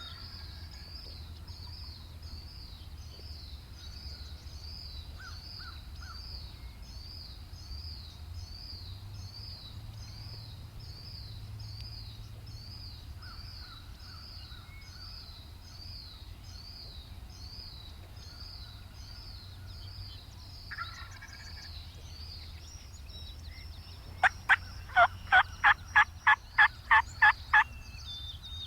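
Wild turkey calling: near the end a loud series of about ten evenly spaced turkey calls, with fainter turkey sounds earlier, over a high chirping that repeats steadily throughout.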